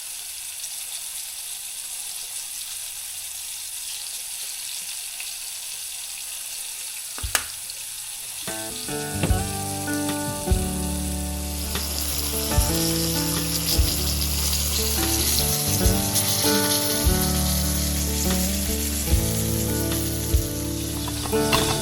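Food sizzling as it fries in a pan, with the sizzle growing louder about halfway through. A sharp click comes about seven seconds in, and background music with a steady beat starts shortly after.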